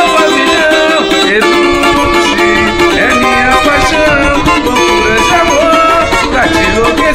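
Cavaquinho with a deep 'caixa de 9' body and solid pine top, strummed in chords with a deep, heavy tone, and a man singing along over it.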